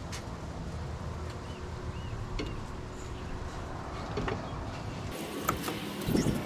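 Hand tools clicking and clinking now and then on engine parts, over a steady low rumble.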